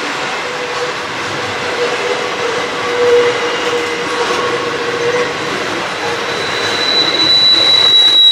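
Grain hopper wagons rolling past with a steady rumble and wheel squeal. A lower squeal holds through the first half, then a high-pitched squeal sets in about two-thirds of the way through and grows louder.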